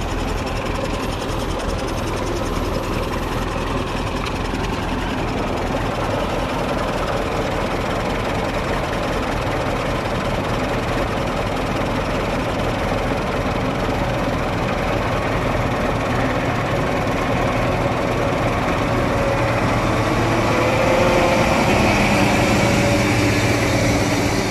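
Heavy diesel engine of farm machinery running steadily, growing louder with a slowly rising tone over the last few seconds.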